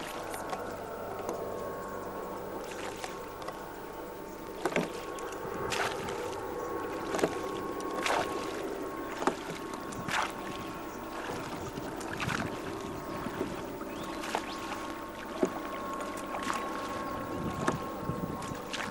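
A boat on the water: a steady hum with sharp knocks coming irregularly, about one every second or so.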